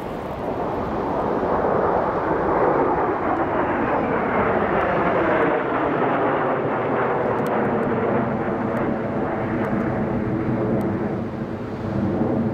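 A formation of Kawasaki T-4 twin-turbofan jet trainers flying overhead: a continuous jet roar that swells over the first two seconds and then holds, with a whooshing sweep that falls in pitch as the formation passes.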